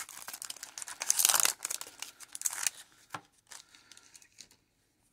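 Foil wrapper of a Magic: The Gathering set booster pack crinkling as it is torn open by hand, for about the first three seconds, followed by a few soft clicks.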